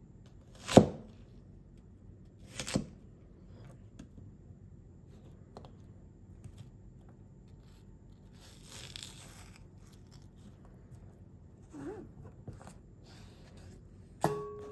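Small, thick C75 carbon-steel cleaver cutting an onion on a cutting board: a loud sharp chop about a second in, a second chop soon after, and a softer slicing sound through the onion midway. A final sharp chop near the end is followed by a brief ringing tone.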